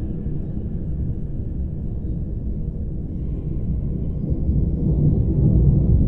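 Low, steady deep-water rumble of an ocean-depth ambience, swelling a little about four seconds in, with faint drifting high tones above it.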